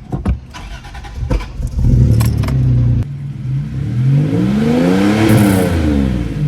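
A few key and ignition clicks, then a second-generation Toyota 4Runner's engine starts about two seconds in, just after its fuel pump has been replaced. It runs steadily, then is revved up and back down once.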